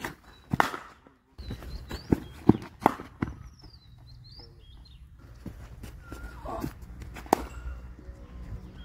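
A hard cricket ball knocking off a bat and bouncing on the pitch: several sharp knocks, the loudest about half a second in and about seven seconds in, with a quick run of four knocks between two and three and a half seconds in. Birds chirp now and then.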